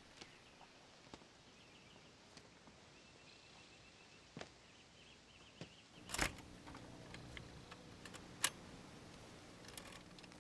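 A few faint ticks, then about six seconds in a sharp click as an old record player starts. A low steady hum and scattered clicks follow while the platter turns and the tonearm moves over the record.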